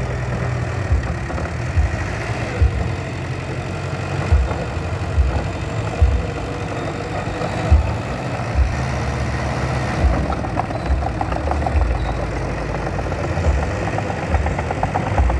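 Bulldozer's diesel engine running steadily while working, with short low thumps roughly once a second.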